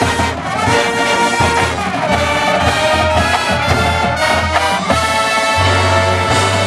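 Drum and bugle corps brass line playing loud, full chords, backed by the front ensemble's keyboards and electric bass. Pitches slide in the first two seconds, and a long low bass note comes in near the end.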